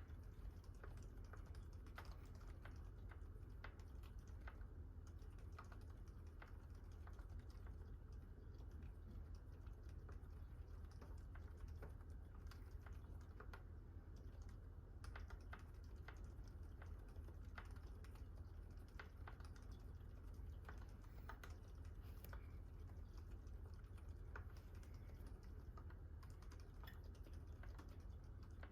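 Typing on a GMMK Pro mechanical keyboard with a brass plate and fully lubed Gazzew Boba U4 silent tactile switches: faint keystrokes at an uneven pace, over a steady low hum.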